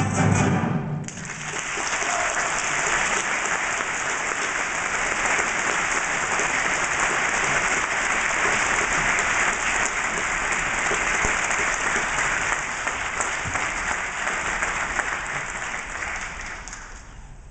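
The ballet music ends within the first second, then a theatre audience applauds steadily, dying away near the end.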